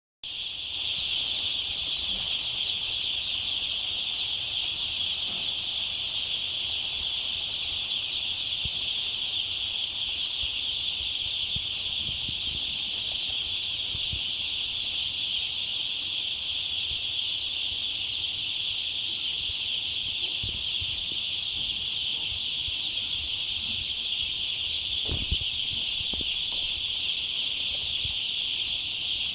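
Steady, unbroken high-pitched peeping of a shed full of chicks, countless calls blending into one continuous chorus, with a few faint knocks and one louder knock about 25 seconds in.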